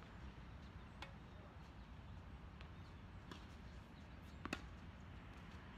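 Tennis ball struck by rackets during a rally: three sharp pocks, the last and loudest about four and a half seconds in, over a faint low background rumble.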